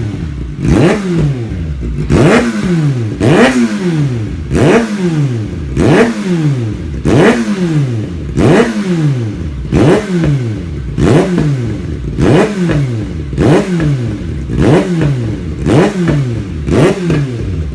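Kawasaki ZX-6R inline-four engine, its stock exhaust pipe removed, revved in quick throttle blips about once a second, each jumping up in pitch and falling back toward idle.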